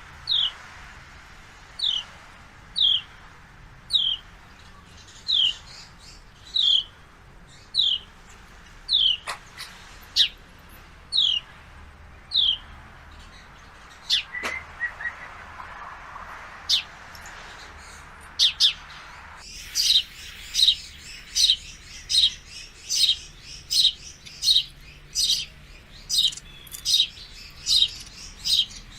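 Male sparrow chirping: single short chirps falling in pitch, about one a second. About two-thirds of the way through they turn louder and quicker.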